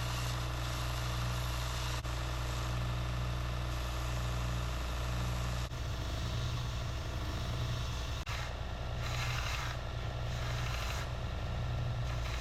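Belt sander running steadily with a fresh 60-grit belt, a constant motor hum under the belt's hiss. In the last few seconds there are a few short, louder stretches of rasping, typical of the birch bark handle being pressed to the belt.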